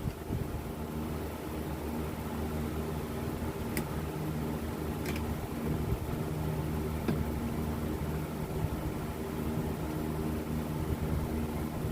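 A machine running steadily with a low, even hum, with a few faint light clicks in the middle.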